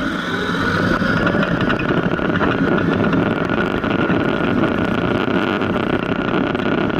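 Heavy military vehicle engine running steadily, with a constant high whine over dense mechanical noise.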